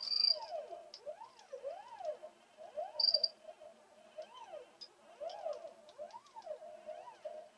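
Stepper motors turning an Etch A Sketch's knobs under CNC control, their whine gliding up and down in pitch with each stroke as the controller ramps the speed up and down. Two short high squeaks, at the very start and about three seconds in, are the loudest moments.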